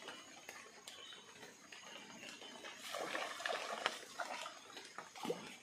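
Steady rush of a flooded river. From about three seconds in comes a louder, irregular run of rough sounds and sharp clicks.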